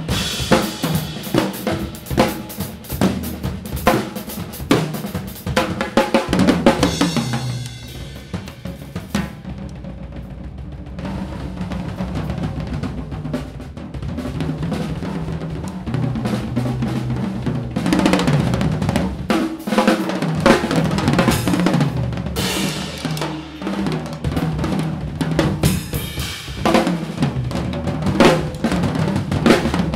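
Two drum kits played together in an improvised duet: snare, bass drum, toms, hi-hat and cymbals. About eight seconds in the cymbals drop out and the playing thins to drums alone, then it builds back up, with cymbals crashing again from about eighteen seconds.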